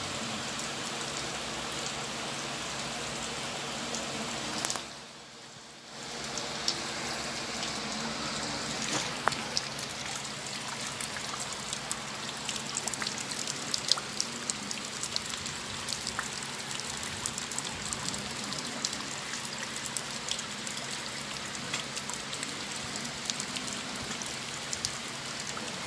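Heavy rain falling steadily, with many individual drops ticking sharply; the sound briefly drops away for about a second around five seconds in.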